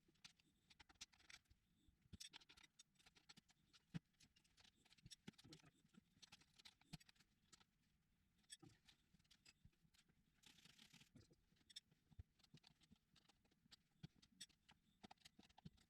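Near silence with faint, scattered clicks and scratches, like hand tools and parts being handled during a motorcycle tire change. A brief faint hiss comes about ten seconds in.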